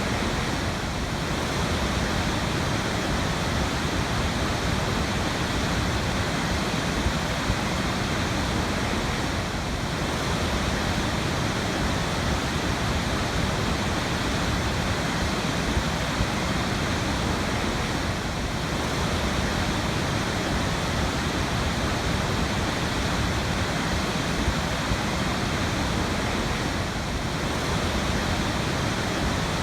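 Waterfall: a steady, dense rush of falling water with no letup.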